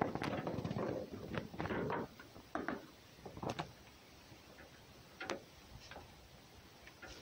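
Crackling rustle in dry straw and hay for about the first two seconds, then a few separate light sharp clicks, as a red fox and a cat move about in a straw-bedded pen.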